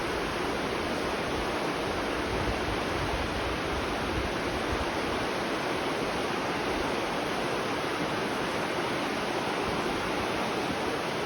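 Steady rushing of flowing spring water, an even unbroken wash of sound.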